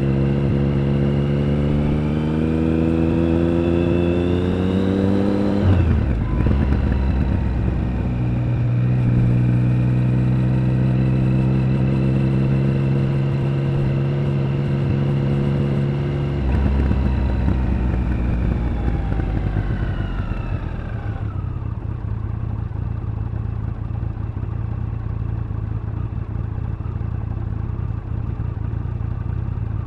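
Triumph Speed Triple 1050's inline three-cylinder engine and exhaust under way: the note climbs as it pulls through a gear, drops sharply at an upshift about six seconds in, then holds steady. A little past halfway the throttle comes off and the pitch falls away, settling into a steady lower note for the last third.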